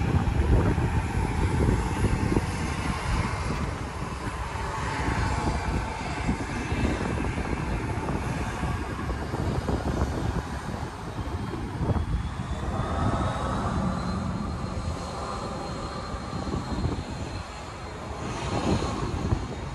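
Airliner engine noise from the airfield: a continuous rushing rumble, with a faint high whine that rises in pitch about two-thirds of the way through.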